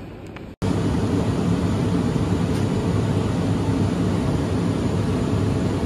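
Steady mechanical rumble and hiss, like machinery or ventilation running, starting abruptly about half a second in.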